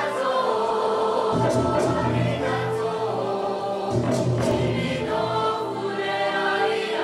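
Junior choir singing held notes over a produced hip-hop beat. Bass and drum hits come in about a second and a half in.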